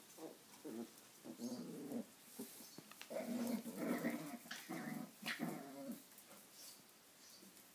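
Seven-week-old Parson Russell Terrier puppies play-growling as they wrestle, a run of short growls that is loudest in the middle.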